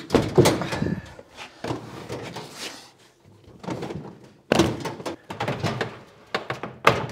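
Steel drawer tool chest being forced into a too-tight opening in a 2x4 timber bench frame: irregular knocks and thumps of metal against wood. The loudest bangs come about four and a half seconds in and again near the end, as the chest is forced home.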